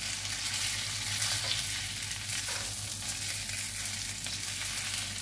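Sabudana snack pieces frying in a kadhai, sizzling steadily while a spatula stirs and tosses them, scraping against the pan.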